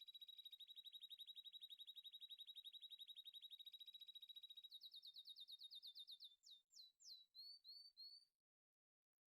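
A fast, faint trill of high chirps. About five seconds in it breaks into separate rising and falling chirps, then cuts off suddenly near the end.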